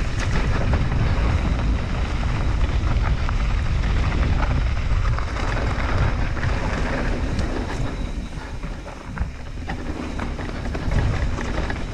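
Wind buffeting the microphone of a mountain biker riding downhill on a trail, with tyre noise on dirt and frequent clicks and rattles from the bike over rough ground.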